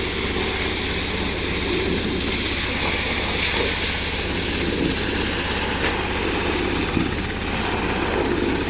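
Engine of a sand-suction pump machine running steadily under load, a continuous drone.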